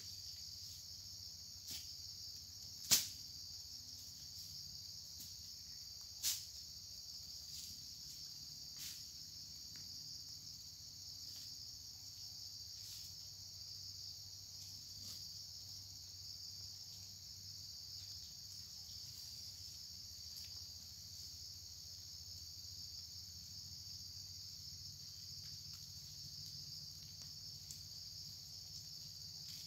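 Steady high-pitched chorus of insects, with a few sharp clicks or snaps, the loudest about three seconds in and another about six seconds in.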